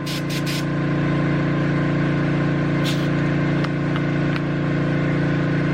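Air compressor running steadily while inflating a motorcycle tyre, with a few short hisses of air, three quick ones at the start and one about three seconds in.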